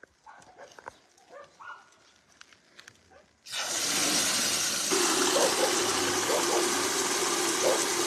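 Water pouring into two metal buckets: a steady, loud rushing splash that starts suddenly about three and a half seconds in, after a few seconds of faint background sounds.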